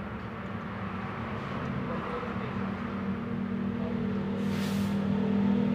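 An engine running steadily with a low hum that slowly grows louder, and a short hiss about four and a half seconds in.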